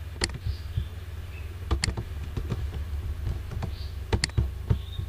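Computer mouse and keyboard clicks: a few sharp clicks, some in quick pairs like double-clicks, with lighter key taps between them, over a steady low hum.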